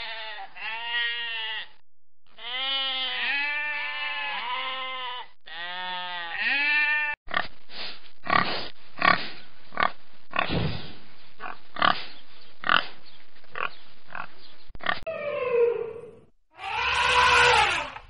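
A flock of sheep bleating over and over, then pigs giving a run of short grunts. Near the end an elephant begins a loud trumpeting call.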